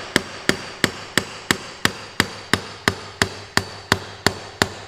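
A ball-peen hammer strikes the steel bell crank (steering arm) on a tractor's front kingpin, driving the arm off the kingpin shaft. The blows come steadily, about three a second, each with a ringing metallic clank.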